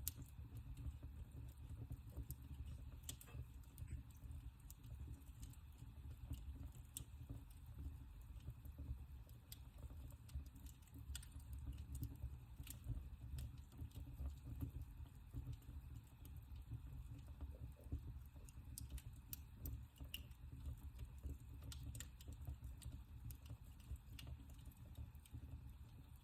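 Wood fire burning in a fireplace: a faint low rumble of the flames with scattered sharp crackles and pops at irregular intervals.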